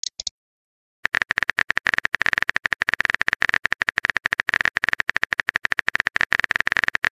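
Phone keyboard typing sound effect: two quick clicks at the start, then from about a second in a rapid, continuous run of keypress clicks as a text message is typed out.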